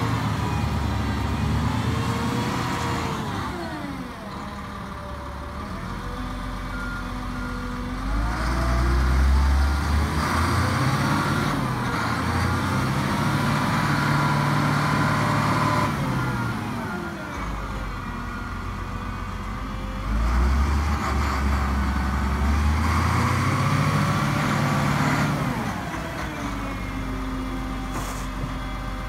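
Komatsu HM300-2 articulated dump truck's diesel engine being revved up, held at high revs and let back down toward idle, several times over.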